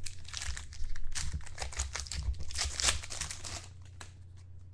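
Plastic trading-card pack wrapper crinkling and tearing as a pack of football cards is opened. The crackling dies down about three and a half seconds in.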